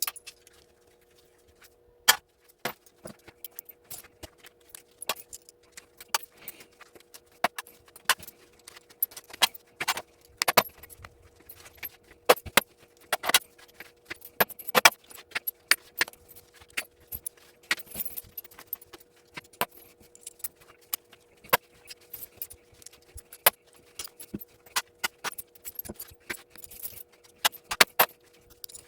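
Small brass plug parts clinking and clicking as they are handled and dropped into a container, in many quick, irregular clicks. A steady hum runs underneath.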